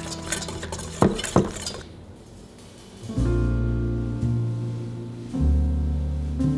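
Background music, with loud piano and bass notes coming in about three seconds in. Early on, two sharp clinks of a kitchen utensil against dishware sound over the music.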